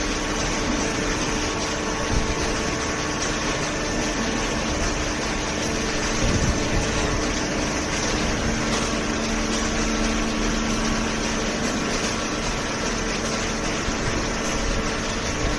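Hydraulic baler's motor and pump running with a steady mechanical hum.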